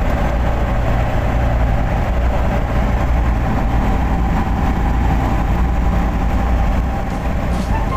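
Steady engine and road noise heard inside the cabin of a moving vehicle: a low rumble with a faint steady whine over it.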